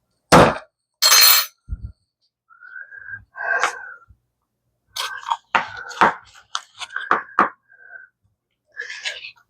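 Kitchen utensils and dishes being handled on a counter: a sharp knock just after the start, a brief scrape or rustle about a second in, then a run of small clinks and taps.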